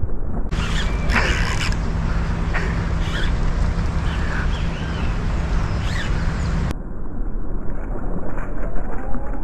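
Low rumble of wind and handling noise on a camera microphone, with a hooked fish splashing and thrashing at the water's surface.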